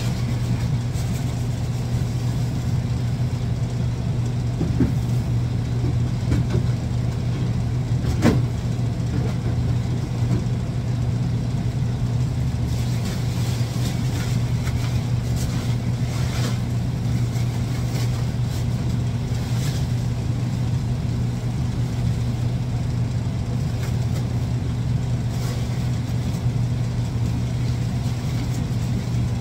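Industrial exhaust fan running with a steady low hum. Over it, used cat litter is tipped from plastic litter boxes into a plastic trash bag, in bursts of rattling and rustling, with one sharp knock about eight seconds in.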